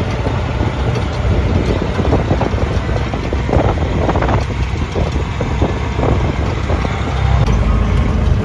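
Auto-rickshaw engine running as the three-wheeler drives along, heard from inside the open cab: a steady low drone with road noise.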